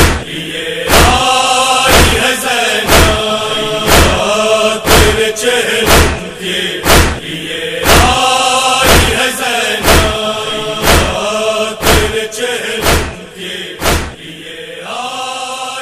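Nauha chanting by a group of voices over matam, palms striking chests in unison about once a second. The beating stops about fourteen seconds in, and the chanting carries on briefly without it.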